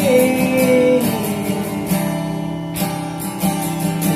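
Background music: strummed acoustic guitar with backing instruments, in a short instrumental gap between sung lines of a pop song.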